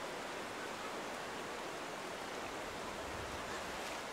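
River water rushing steadily over rocks and rapids, a constant even hiss.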